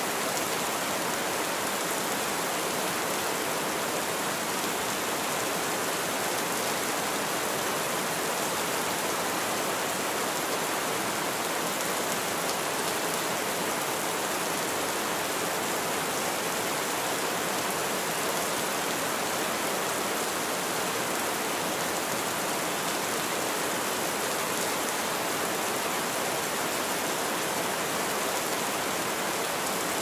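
Steady rain falling, an even hiss that stays the same throughout, with no thunder or separate drips standing out.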